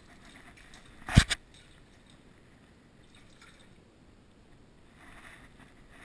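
Two sharp knocks a fraction of a second apart, much the loudest sound here, over faint dripping water in a concrete culvert.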